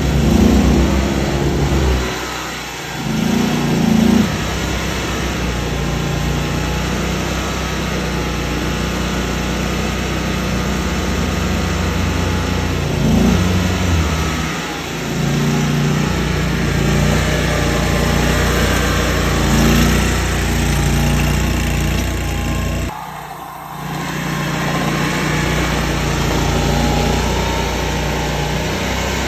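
Tracked mini skid steer's engine running under work, its pitch rising and falling with load, with a higher whine over it at times. The engine note drops briefly twice, once about two seconds in and once near the end.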